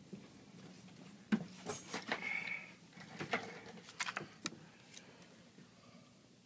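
Small tools and parts being handled during an iPad repair, with a cluster of sharp clicks and light clattering from about a second in until nearly five seconds in, over a faint steady hum.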